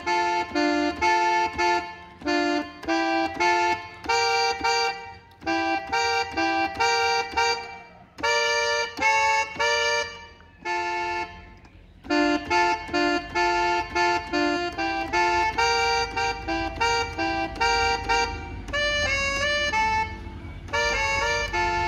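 Korg arranger keyboard played with an accordion voice: a right-hand melody in D minor, short repeated notes, often two at a time, in phrases broken by brief pauses.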